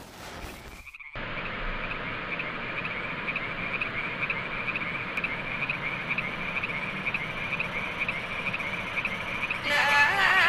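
Frogs croaking in a chorus, a rapid, regular pulsing call over a steady hiss. Music comes in near the end.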